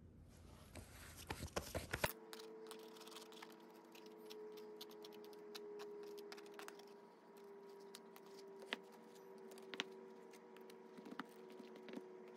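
Sand mould being broken off a freshly cast aluminium bronze knife with tongs and pliers: scraping, crumbling sand and light metal clicks, busiest in the first two seconds, then scattered clicks over a faint steady hum.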